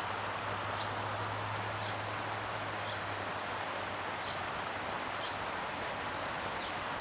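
Heavy rain falling steadily, an even hiss, with a few faint short high chirps here and there.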